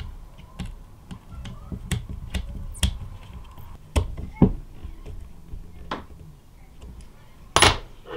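Small hand tools clicking and tapping against screws and 3D-printed plastic parts while screws are driven in by hand: irregular light clicks, with a louder clack near the end.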